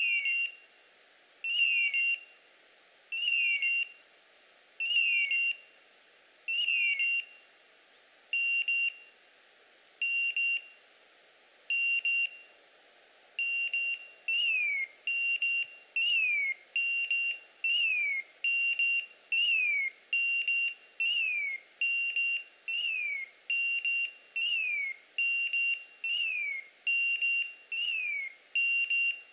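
Electronic beeper collar on a hunting setter, sounding a repeated high beep, many of the beeps with a falling chirp. It beeps about every two seconds, then quickens to about one beep a second from about halfway through. This is the beeper's signal that the dog has stopped and is holding point.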